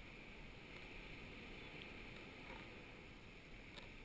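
Faint, steady, muffled wash of sea water around a camera floating at the surface, with a few faint ticks.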